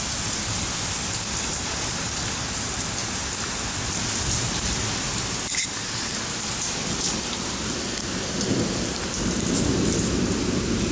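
Heavy rain pouring onto a concrete driveway in a thunderstorm, a steady hiss throughout, with a roll of thunder rumbling in during the last few seconds.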